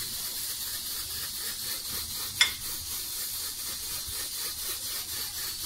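Steady high hiss of background noise, with a single sharp click about two and a half seconds in.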